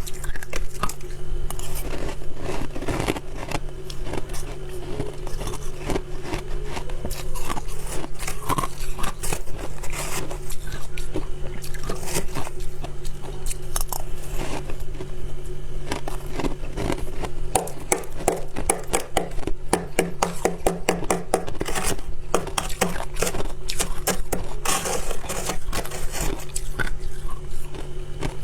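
Soft white ice (freezer frost or shaved ice) being bitten and crunched close to the microphone: a dense, irregular run of crisp crackles and scrapes over a steady low hum.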